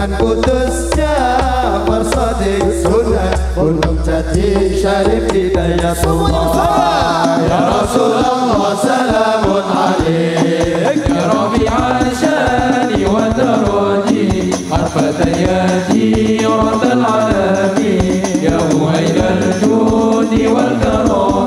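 Sholawat, Islamic devotional song in praise of the Prophet, sung with amplified musical accompaniment. A low bass note is held for about the first seven seconds, then percussion comes in with a steady beat under the singing.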